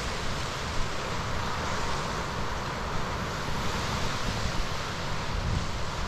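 Snowstorm wind rushing and buffeting the microphone: a steady hiss with a fluttering low rumble, and no single sound standing out.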